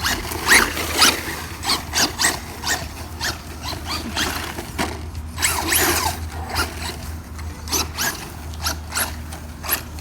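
Traxxas Rustler VXL RC truck's brushless motor and gear drive whining in many short rising and falling bursts as the throttle is blipped.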